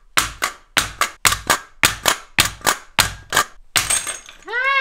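Sharp metal knocks, about fourteen at roughly four a second, as the turbine rotor of a GTD-350 gas turbine engine is knocked loose from its housing and seized bearing.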